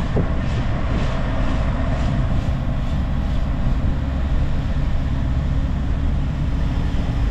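Interior sound of a heavy 3.2-tonne camper van driving up a mountain pass road: a steady low rumble of engine and road, with wind rushing in through the open side window.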